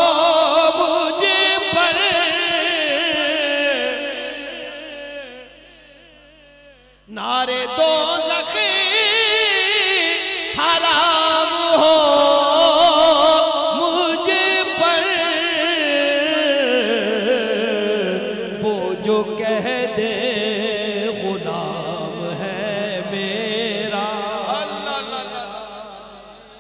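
A man singing a naat solo in long, drawn-out melismatic notes with strong vibrato. The voice fades away about five seconds in and comes back in loudly a couple of seconds later.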